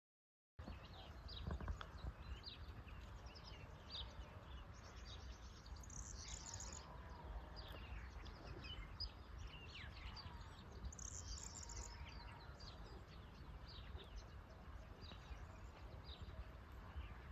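Birds singing and calling in open countryside: many short chirps and quick falling notes, faint, over a steady low rumble. The sound comes in suddenly about half a second in.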